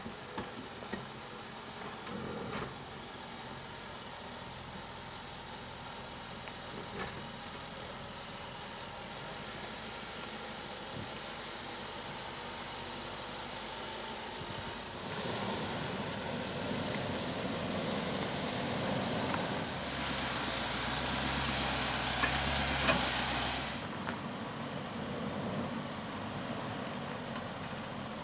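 A 2012 Land Rover LR4's 5.0-litre V8 running at low speed as the SUV crawls an off-road trail. Past the middle, the sound grows louder and noisier for several seconds, with a deeper rumble near its end, before settling back to the steady low run.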